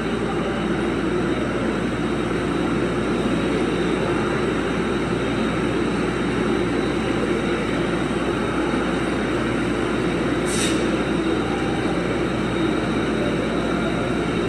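Steady drone of running industrial machinery, with a short high hiss about ten and a half seconds in.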